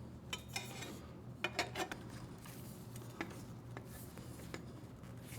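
Light metallic clinks and clicks from loose stainless exhaust parts and hand tools being handled during fitting, several scattered with a quick cluster about a second and a half in. A steady low hum runs underneath.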